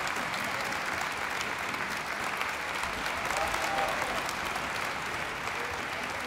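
Concert audience applauding steadily after an orchestral performance.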